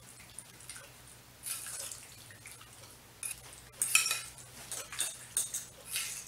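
Steak being mixed into a wet fajita-seasoning marinade of oil and water in a dish: wet stirring and scraping in short, irregular bursts, the loudest about four seconds in.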